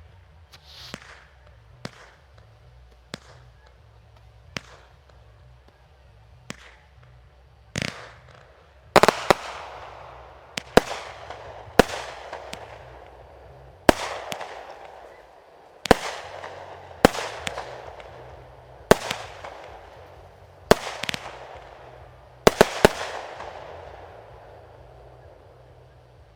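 Fireworks bursting: a string of sharp bangs, sparse and lighter at first, then from about eight seconds in a run of louder reports every second or two, each trailing a crackling fizz that fades away.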